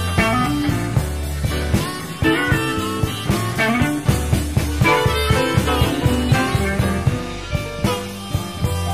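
Chicago blues band playing an instrumental passage: a steady drum beat and bass under melodic runs from the lead instruments.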